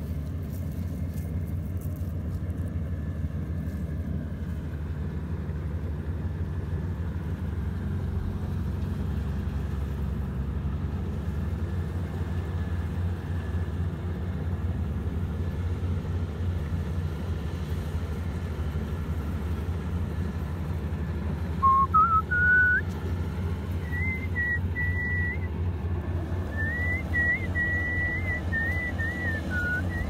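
Rice combine harvester's engine running with a steady low drone. About two-thirds of the way through, a high whistle rises in pitch, then holds and wavers up and down until the end.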